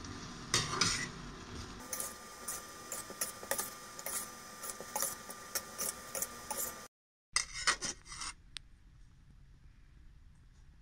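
Metal spatula scraping and clinking against a stainless steel frying pan, stirring a thick prawn sambal with quick repeated strokes. The strokes break off for a moment, resume briefly, then stop.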